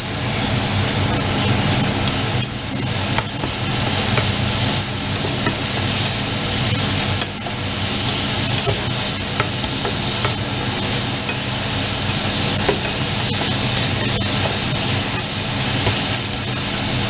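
Prawns and squid sizzling as they fry in a shallow sauce in a nonstick frying pan, stirred with a silicone spatula that scrapes and taps the pan now and then. A steady low hum runs underneath.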